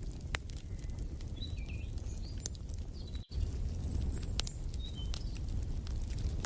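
Wood fire in a fireplace crackling, with sharp pops over a low steady rumble, and short bird chirps a few times. The sound drops out for a split second about halfway through.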